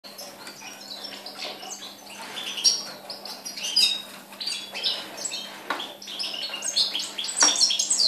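Young European goldfinch singing: a rapid, continuous twittering of chirps and trills, loudest near the end.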